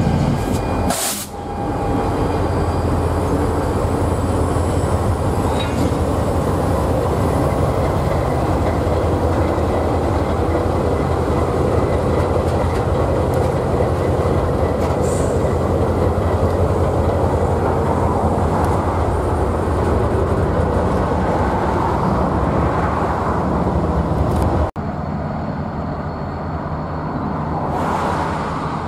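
BNSF diesel-hauled freight train passing close by: locomotive engines drone and the freight cars' steel wheels run on the rails in a loud, steady rumble. About 25 seconds in, the sound drops suddenly to a quieter, more distant train rumble.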